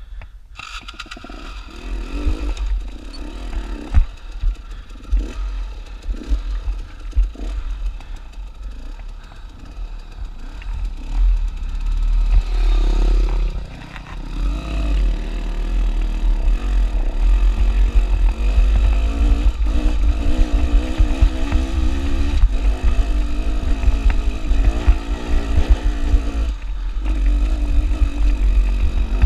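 Dirt bike engine running under changing throttle over rocky ground, with stones clattering and knocking under the tyres and a heavy low rumble throughout. The engine note gets louder and steadier in the second half.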